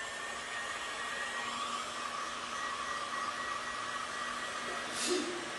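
Handheld heat gun running steadily, its fan blowing hot air with a steady whine, warming a WoodUbend wood moulding to soften it and make it flexible.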